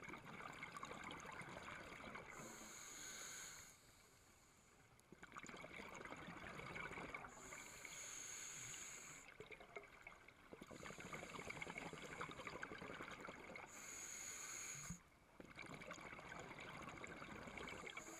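Scuba regulator breathing underwater: steady hissing breaths alternating every few seconds with crackling, bubbling exhalations, with a short pause twice.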